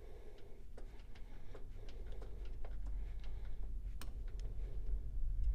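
Light, irregular metallic ticks and clicks from a Hypromac 1550 lathe's cross slide as its handwheel is rocked back and forth, taking up the remaining backlash in the cross-slide screw and nut. A faint low hum runs underneath.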